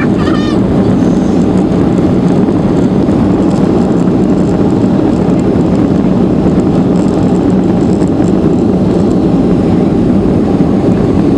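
Airliner cabin noise: a loud, steady rush of jet engines and airflow as the plane rolls along the runway after landing.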